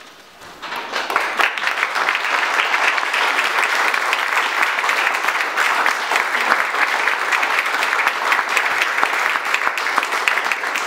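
Audience applauding. The clapping starts just under a second in and carries on steadily.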